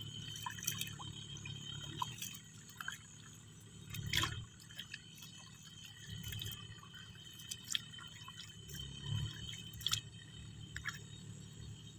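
Hands squelching and sloshing through soft mud under shallow water, with scattered small splashes and drips, while groping in the mud for snakehead fish.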